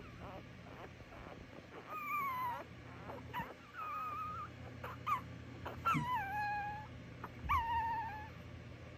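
Newborn American Bully puppies whimpering and squealing: four thin, high-pitched cries with a few shorter squeaks between them, several of the cries sliding down in pitch.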